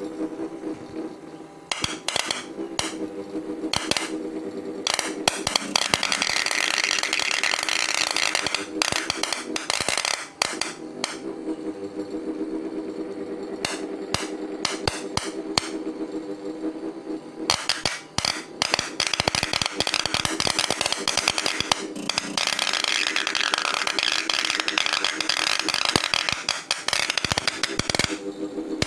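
Electrical discharge machining: a copper electrode sparking under water against an aluminum plate, an irregular run of sharp cracking snaps with bursts of sizzling hiss, over a steady hum.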